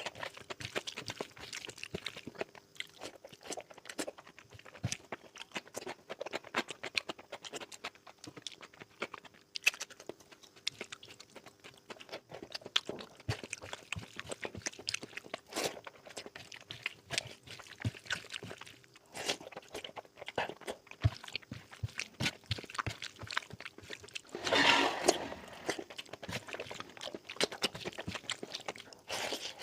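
Close-miked chewing and mouth sounds of someone eating curry: a steady stream of short wet clicks, smacks and crunches, with one louder, longer noisy burst a little before the end.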